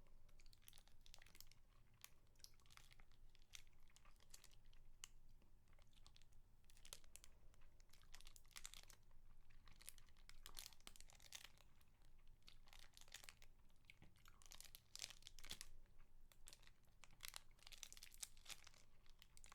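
Close-miked crinkling and crackling from a spicy mango lollipop being eaten: irregular clusters of sharp crackles and clicks, thickest in the second half.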